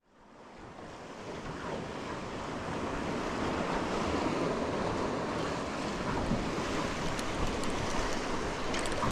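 Wind buffeting the microphone over water lapping around a small boat, a steady rush that fades in over the first couple of seconds. A few faint ticks near the end.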